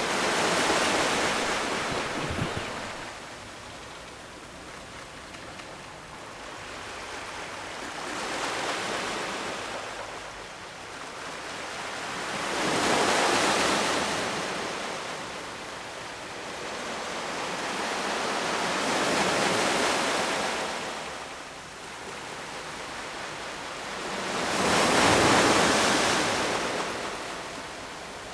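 Ocean surf: waves breaking and washing up the shore, the rush of noise swelling and fading about every five to six seconds, five times, the last one the loudest.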